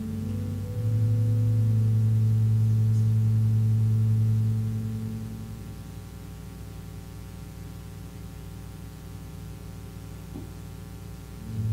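Slow instrumental music: low, sustained chords held for several seconds. One chord swells about a second in and fades after about four seconds, and a new chord comes in near the end.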